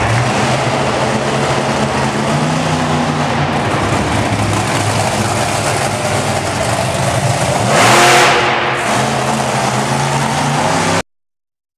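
Monster truck engines running and revving, with a loud rising rev about eight seconds in. The sound cuts off abruptly a little before the end.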